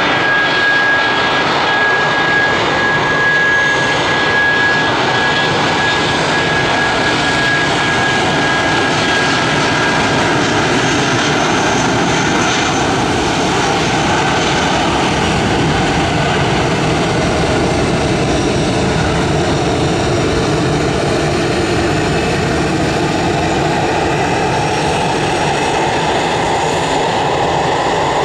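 Airbus A319 airliner's twin jet engines at take-off power through the take-off roll and lift-off, loud and steady. A high fan whine is heard for the first nine seconds or so, then fades.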